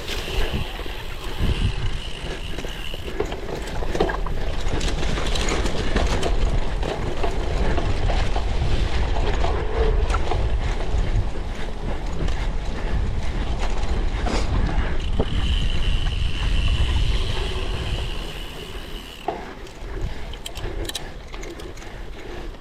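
Cyclocross bike ridden over rough ground: wind rumbling on the microphone over the rattle of the chain and frame. The rear hub's freewheel buzzes twice while coasting, for a few seconds each time, and the noise drops near the end.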